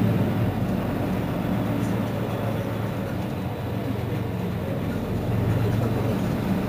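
Mercedes-Benz Citaro C2 city bus engine idling steadily while the bus stands still, a low even hum.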